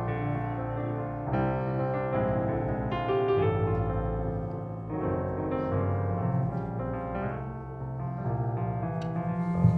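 Keyboard playing slow worship chords, changing every second or so.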